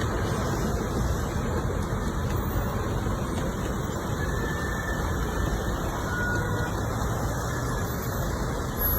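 Steady road traffic noise from vehicles on a rain-flooded street, an even rumble with no single event standing out.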